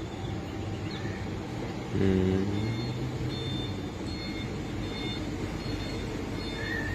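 Steady low rumble of a river ferryboat's engines. About two seconds in there is a brief, louder low-pitched blast, then faint short high beeps repeat over it.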